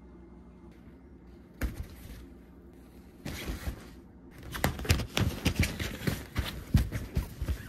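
Nylon fabric cat tunnel rustling and crinkling as a kitten rolls and paws about inside it, in irregular scratchy bursts that start with a thump about a second and a half in and get busier in the second half.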